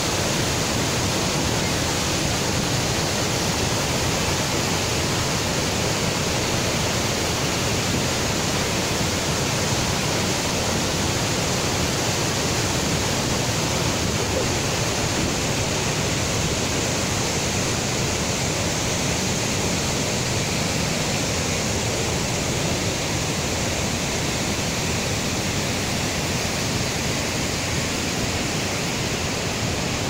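Dhuandhar Falls on the Narmada River: a large waterfall plunging over rock into churning rapids, a steady heavy rush of water.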